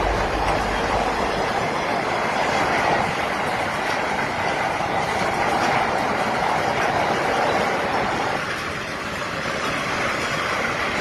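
Freight train of car-carrier wagons rolling past, with a steady rumble and hiss of steel wheels on the rails that eases slightly near the end.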